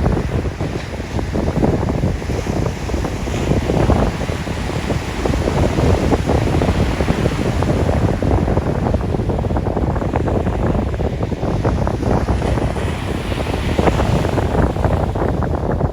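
Sea waves washing in, swelling twice, with heavy wind buffeting the microphone in a constant low rumble.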